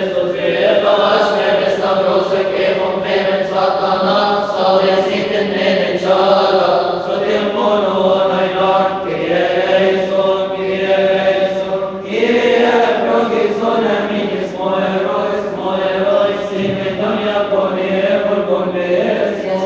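Men's voices chanting a Coptic Orthodox liturgical hymn in long held notes that bend slowly in pitch, with a new phrase starting about two-thirds of the way through.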